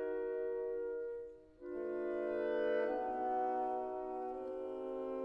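Background music of held, slow-moving chords that fade out briefly about a second and a half in, then come back with a new chord.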